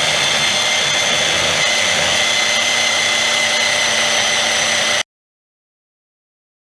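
Portable band saw running at full speed, a steady high-pitched motor and blade whine as it cuts through metal stock. It cuts off abruptly about five seconds in, leaving dead silence.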